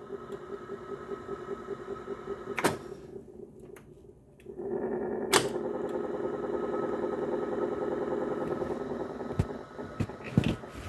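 Teac A-3440 reel-to-reel tape deck running in play, its transport making a steady, fast-pulsing mechanical whirr with a sharp clunk three times at even spacing, roughly every two and a half seconds. The running gets louder about halfway through. The clunking is the fault being shown; it is worse in the play position.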